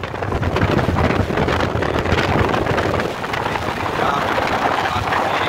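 Heavy wind buffeting the phone's microphone while riding a motorcycle at speed, with the rumble of the moving vehicle and road underneath.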